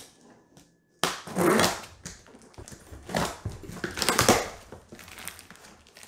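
Cardboard shipping box being handled and its top flaps pulled open: a series of loud crackling, scraping bursts that start abruptly about a second in.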